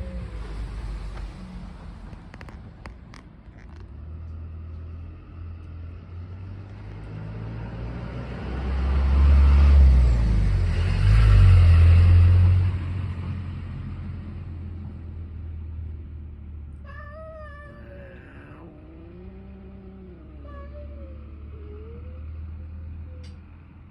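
Cats yowling in a standoff: long, wavering, drawn-out yowls and a lower growling call, mostly in the second half. A passing vehicle's low rumble swells and fades near the middle and is the loudest sound.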